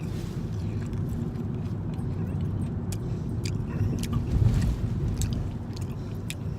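A person biting and chewing a strip of crispy bacon, with scattered small crunching clicks, over a steady low rumble like a car's cabin noise.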